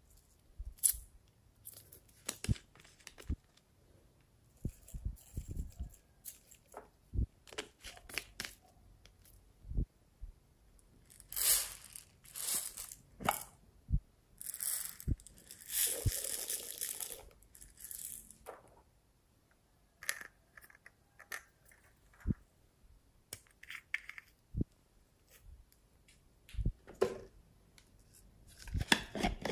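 Hands handling small plastic containers of slime add-ins: scattered taps and clicks on plastic, with a few longer rustling, rattling bursts from about a third of the way in to just past halfway.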